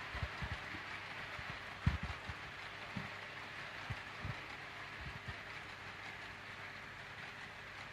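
Freight train running on the track: a steady hiss with irregular low thumps.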